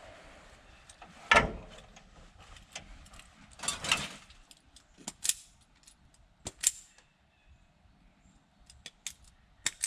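Scattered metallic clicks, rattles and knocks of tools and wiring parts being handled, the loudest a single knock about a second and a half in.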